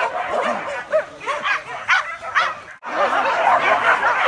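A pack of hunting dogs yelping and baying in the chase of wild boar, several dogs overlapping in quick, high calls. The sound breaks off abruptly a little under three seconds in and comes back as a denser chorus of yelps.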